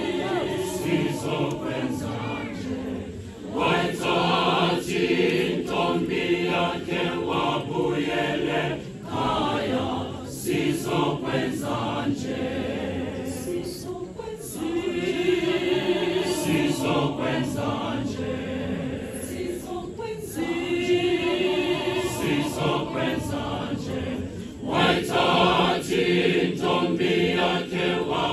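Mixed choir of women's and men's voices singing a cappella in parts, in long phrases with brief breaks about every five seconds.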